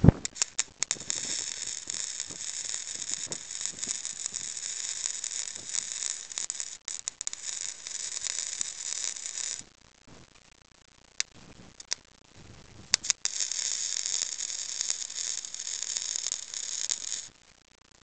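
Wire-feed welder arc sizzling steadily as a bead is run along the mini bike frame tube, in two runs: about nine seconds, a pause with a few short strikes, then about four seconds more.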